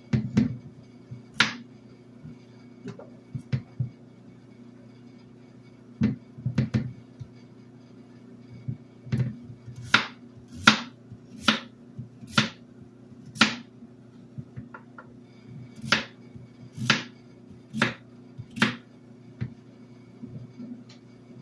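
Chef's knife chopping peeled eggplant on a bamboo cutting board: sharp knocks of the blade striking the wood. The strokes are scattered at first, then come in an even run of about one a second.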